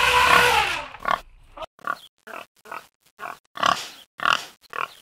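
Wild boars grunting: a long pitched call in the first second, then a run of short pig grunts, about two a second.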